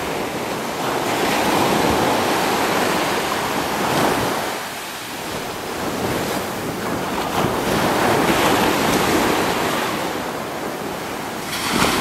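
Ocean surf washing onto a beach, the noise swelling and ebbing as the waves come in, with a wave breaking sharply near the end.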